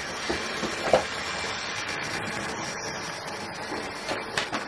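Hornby OO gauge GWR Dean Single model locomotive and coaches running past on the track: a steady electric motor whir, with occasional faint clicks from the wheels over the rail joints.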